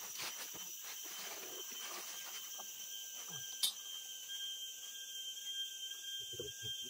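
Insects calling in steady high-pitched tones, with a lower tone joining about two and a half seconds in. A single sharp click comes about three and a half seconds in, and a few soft knocks near the end.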